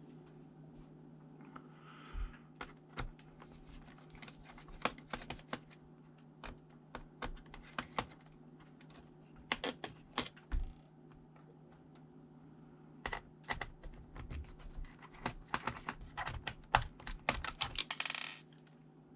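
Irregular clicks and taps from hands handling a ThinkPad T400 laptop, coming in loose clusters, with a short scraping rustle near the end. A steady low hum sits underneath.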